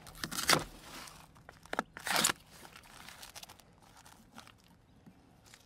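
Plastic-wrapped packages of frozen meat in foam trays crinkling and crunching as they are handled. A few short bursts come in the first two and a half seconds, the last one the loudest, then it goes quiet.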